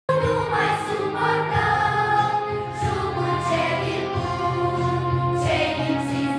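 A choir singing, voices holding long notes that change every second or so.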